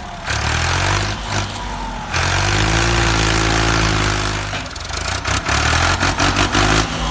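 A tractor engine running, its pitch rising and falling a little.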